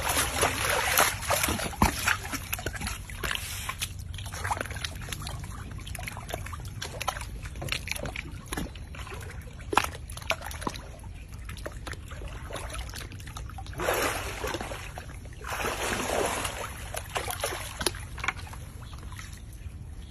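Pool water splashing and sloshing as an alligator snaps up food at the surface, heaviest in the first three seconds, with dripping and small splashes after and two shorter bursts of splashing about two-thirds through.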